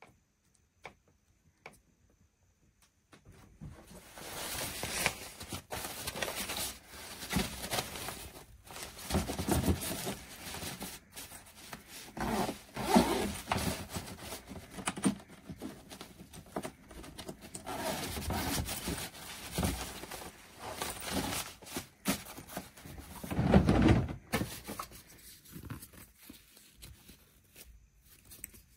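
Handling noises: irregular rustling with knocks and thunks, starting about three seconds in.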